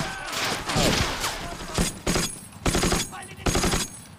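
Battle soundtrack of a WWII war drama: rifle and machine-gun fire in several rapid bursts with short gaps between.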